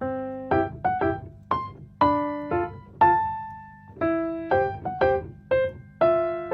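Background music: a light keyboard melody of short notes, each struck and fading away, about two notes a second.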